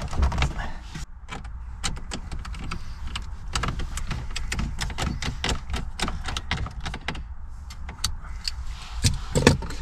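Many quick clicks and light rattles of plastic dashboard trim and fittings being handled and pressed by hand, over a steady low rumble.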